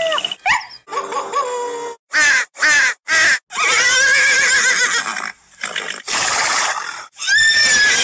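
The end of a coyote howl sliding down in pitch at the very start, then a horse neighing over and over: three short calls about two seconds in, a long quavering whinny, and two more whinnies near the end.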